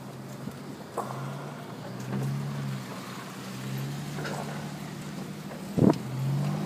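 Car cabin noise while driving slowly: a low steady-pitched hum that swells and fades every second or two, with a couple of sharp knocks, the loudest about six seconds in.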